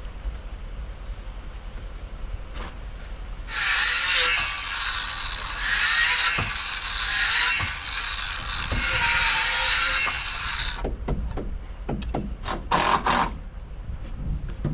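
A tool working lumber in several surging bursts for about seven seconds, then a few sharp knocks.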